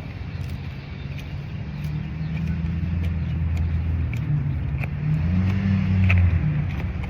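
Road traffic passing: a steady low engine rumble from cars that swells as a vehicle goes by about five to six seconds in, with faint scattered ticks above it.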